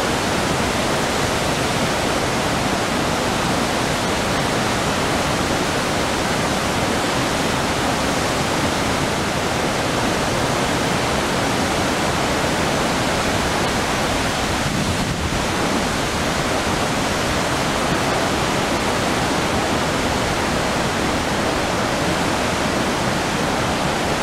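Iguaçu Falls: a large waterfall pouring, a loud, steady rush of noise with no let-up.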